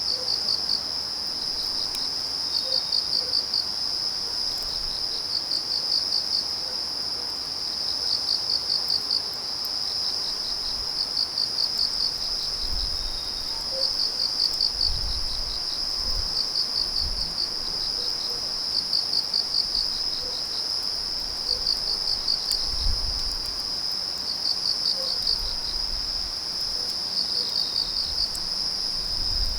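An autumn night chorus of crickets: one continuous high trill, with another cricket chirping in short pulsed bursts about every one and a half to two seconds. Faint crackles from a burning wood fire come through now and then.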